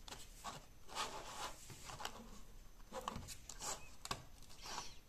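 Faint rubbing, scraping and light clicks of a 3D-printed plastic case and plug being handled on a tabletop, in short scattered bursts.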